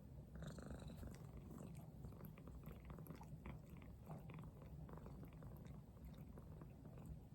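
Domestic cat purring, a quiet low steady rumble, with small clicks scattered over it.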